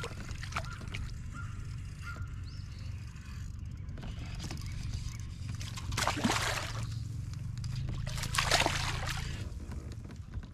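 A hooked bass thrashing and splashing at the water's surface beside a kayak while being reeled in: two loud splashes, about six seconds in and again about two seconds later.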